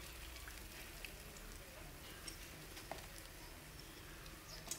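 Besan-coated bread slices shallow-frying in oil in a pan: a faint, steady sizzle with scattered small pops.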